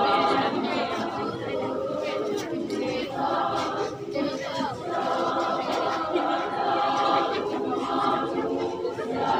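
Women's choir singing a cappella, holding sustained chords, with a short break between phrases about four seconds in.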